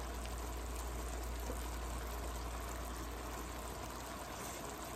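Chicken adobo's soy-and-vinegar broth simmering steadily in a wok over lowered heat, a constant bubbling hiss with a low steady hum beneath.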